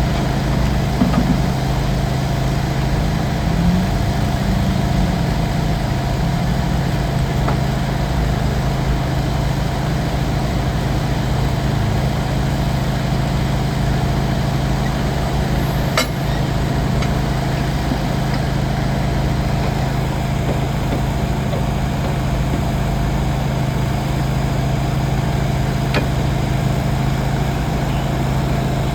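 An engine idling steadily with a constant low hum, with one sharp click about halfway through.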